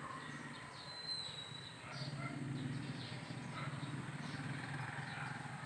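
Birds chirping in the trees: many short, high chirps and, about a second in, one drawn-out high whistle. A low steady hum sits beneath from about two seconds in.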